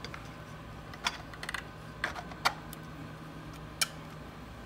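Plastic extruder cover being slid and pressed into place on a 3D printer's extruder, giving a handful of sharp, irregular clicks and taps, the loudest about halfway through.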